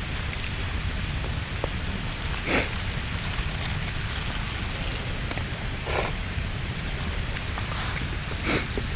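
Steady rushing water noise, with three short slurps of the hot egg-and-green-onion dish, spaced a few seconds apart.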